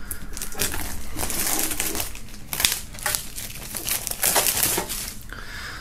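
Clear plastic shrink-wrap being pulled and peeled off a box, crinkling with irregular sharp crackles.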